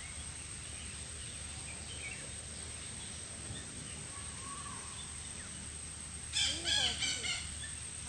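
Outdoor background hiss with small birds chirping faintly. About six seconds in comes a short loud burst of several quick pitched calls.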